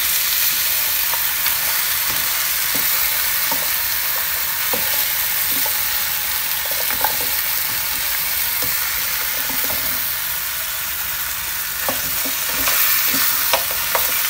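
Pieces of pork pata sizzling in a frying pan as they brown, stirred with a spatula that scrapes and knocks against the pan now and then, more often near the end.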